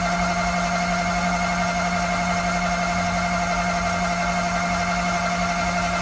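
Toyota 3S-GTE race engine being cranked over on its starter to prime it and build pressure, before the plugs and coils are fitted: a steady, even whir at one pitch that stops abruptly at the end.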